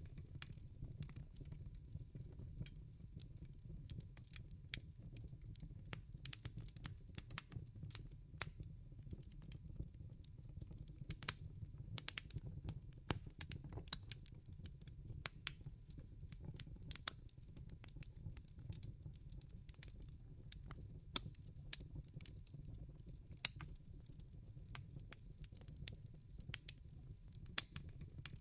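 Wood fire burning in a fireplace: sharp, irregular crackles and pops over a steady low rumble.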